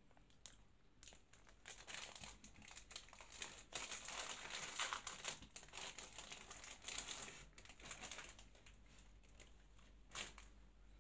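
Plastic wrapper of a Magnum ice cream bar crinkling and tearing as it is opened and peeled off the bar. The rustling is thickest in the middle, tapers off, and ends with one brief rustle near the end.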